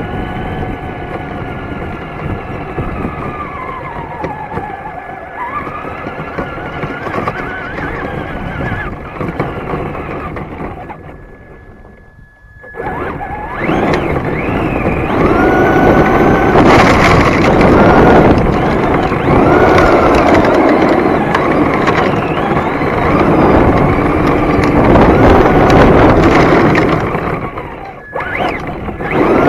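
Traxxas Slash 2WD RC short-course truck driving, heard from a camera on its body: an electric motor whine rising and falling with the throttle over tyre and gravel noise. The truck eases off and goes briefly quiet about eleven seconds in, then runs louder and harder for the rest.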